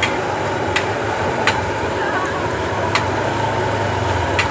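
Puffed cimol (tapioca balls) frying in a wok of hot oil: a steady hiss, broken by about five sharp clicks of a metal ladle against the wok as the balls are stirred.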